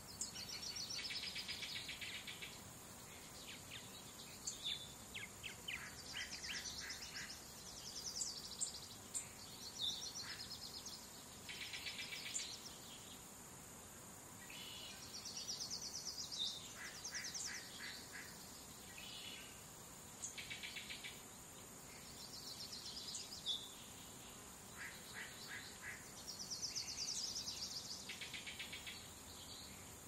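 Songbirds singing in short phrases of rapid trills and sharp chirps, a phrase every few seconds, over a faint steady hiss.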